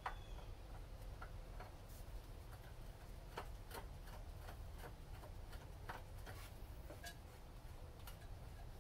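Faint, irregular light clicks and ticks as the oil filter housing cap on a GM 3.6 LFX V6 is screwed down by hand over its many threads, over a low steady hum.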